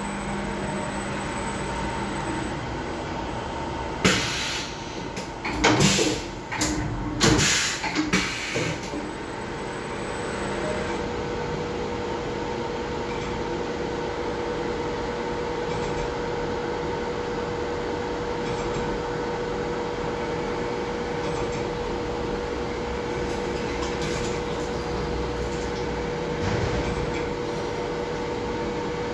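CNC vertical machining centre drilling a metal part: steady spindle and machine hum, with a run of loud clunks and rattles between about four and nine seconds in, then a steady tone as the drill works.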